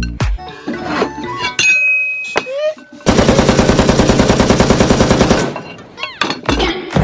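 Machine-gun fire sound effect: a rapid run of about six shots a second lasting a little over two seconds, the loudest thing here. It comes after a few short effect sounds and a brief high beep.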